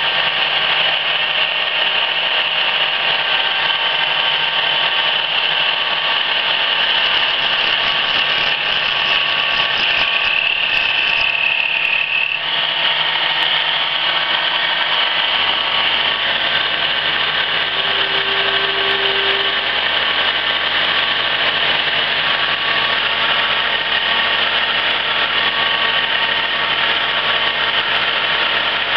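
1974 Emi-Mec E Sprint plugboard automatic lathe running steadily through its turning cycle, tools cutting bar stock under cutting fluid. A high machine whine carries throughout; a second, lower whine cuts off sharply about twelve seconds in, and a deeper hum comes in a few seconds later.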